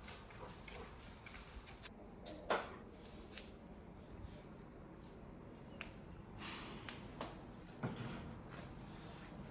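Scattered knocks and clicks of kitchen work, such as cupboards, drawers and utensils being handled, in a small room. The sharpest knock comes about two and a half seconds in, with two more near the end.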